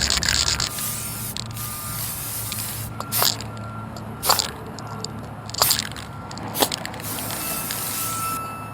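Aerosol spray paint cans hissing as they are sprayed onto a wall: several long sprays and four short bursts in between.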